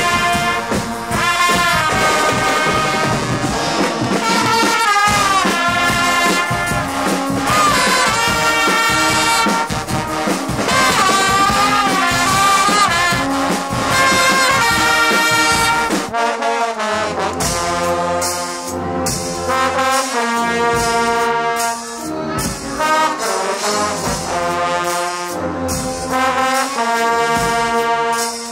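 Guggenmusik carnival brass band playing loudly, with trumpets, trombones and sousaphones. About halfway through the music settles into a steady beat over a pulsing bass line.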